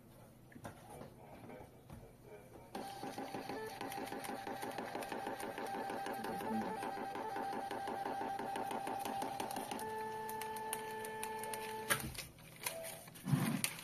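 Mini 80 mm thermal receipt printer printing an image line by line: its paper-feed motor buzzes in a rapid, stuttering rhythm for about seven seconds, then runs with a steady whine for about two seconds and stops abruptly. The printout is then torn off near the end.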